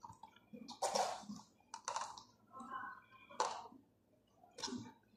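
Thin disposable plastic cups being handled and set down on a stacked cup pyramid: several light, sharp plastic clicks with soft handling noise between them.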